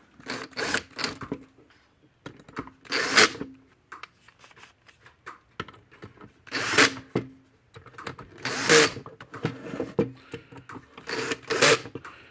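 Cordless drill/driver driving screws into the housing of an electric fence energizer, in about five short runs, each under a second, with pauses between them.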